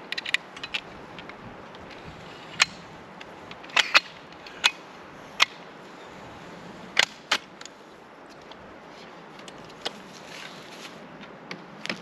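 Irregular sharp clicks and knocks, a dozen or so with some in quick pairs, over a steady faint hiss.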